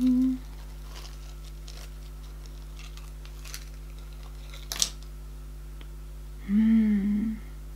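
Faint rustling and light clicks of a small piece of jewellery being handled and taken out of its little packaging pouch, with one sharp click about five seconds in. Near the end there is a short hummed vocal sound.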